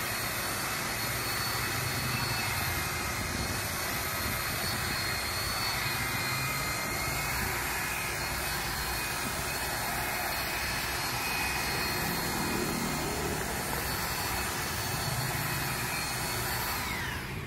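DCK KQU160 electric paddle mixer running steadily under heavy load, its motor whining evenly as the spiral paddle churns thick cement-and-sand mortar. Near the end the whine drops in pitch as the motor winds down.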